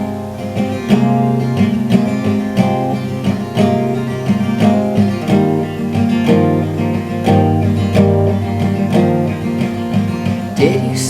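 Acoustic guitar intro of a song, picked and strummed in a steady rhythm with ringing chords.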